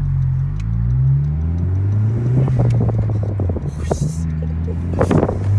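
2020 Honda Civic Si's turbocharged 1.5-litre four-cylinder, fitted with a PRL cold air intake, running under load, its note stepping up and down in pitch as the revs change. A run of clicks comes in the middle and a short hissing burst about five seconds in.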